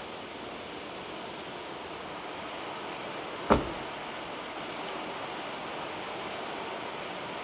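Steady hiss of rain falling, with one sharp knock about halfway through.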